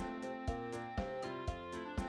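Background music with a steady beat, about two beats a second, under sustained melodic notes.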